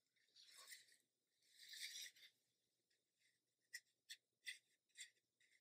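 Faint strokes of a watercolour brush's bristles on textured paper: two soft longer swishes, then a run of short quick dabs and flicks, about two or three a second.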